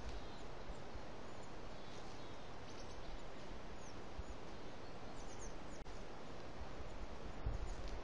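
Steady outdoor background hiss and low rumble, with a few faint, thin, high bird chirps in small clusters about three and five seconds in.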